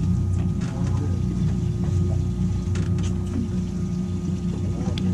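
Boat's outboard engine idling with a steady low hum, with a few light clicks over it.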